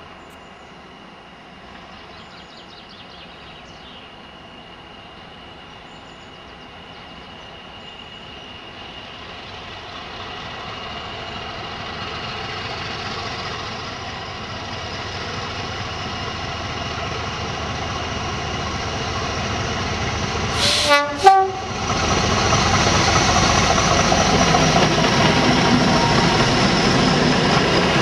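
Diesel train led by Class 50 locomotive 50015 'Valiant', its English Electric 16-cylinder engine growing steadily louder as it approaches. About two-thirds of the way through come two short horn blasts, then the train passes close by with loud engine and wheel noise.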